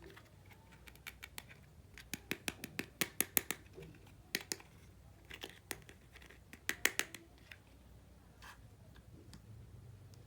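Small hard toy pieces clicking and tapping against each other as they are handled, in quick runs of sharp taps: a dense run of about a dozen two to three and a half seconds in, then shorter clusters, sparser toward the end.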